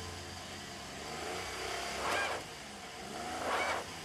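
Car engine revving up and down, with two louder rushing surges, one about two seconds in and one near the end. The car is stuck and is being driven to get it moving.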